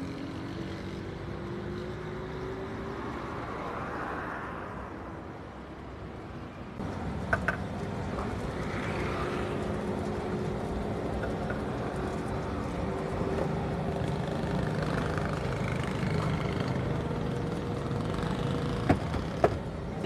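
Street traffic with motor engines running, mixed with kachoris deep-frying in a karahi of hot oil. A few sharp clicks come about seven seconds in and again near the end.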